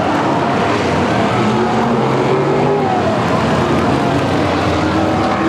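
Several short-track race car engines running at once, their pitch rising and falling as they rev.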